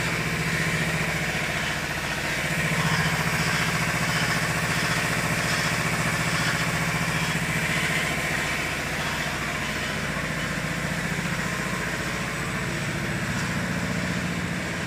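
Glue-spray laminating machine for non-woven cotton running: a steady mechanical drone with a hiss over it, a little louder for a few seconds from about two seconds in.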